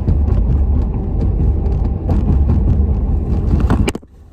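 Steady low rumble of a truck driving, heard from inside the cab: engine and road noise. It cuts off abruptly just before the end.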